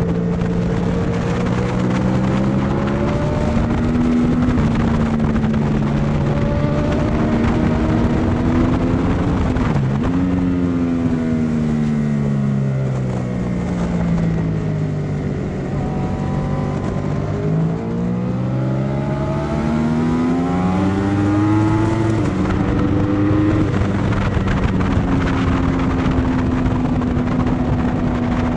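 Yamaha YZF-R1 inline-four engine at racing pace, running continuously. Its pitch falls as it slows for a corner and rises again as it accelerates, with sharp shifts in pitch about ten seconds in and again near eighteen seconds.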